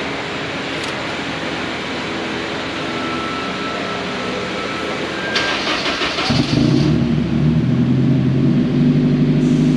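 Turbocharged Honda S2000's four-cylinder engine: a steady noisy hum for the first few seconds, a brief hissing rattle about five seconds in, then the engine note comes in loudly about six seconds in and runs steadily.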